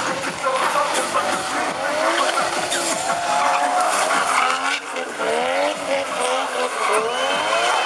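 Drift car sliding through a course: its engine revs up again and again in rising pulls while the rear tyres squeal and skid.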